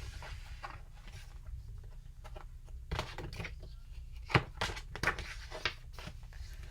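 Quiet room with a low steady hum and a few faint clicks and knocks, the loudest about four and a half seconds in.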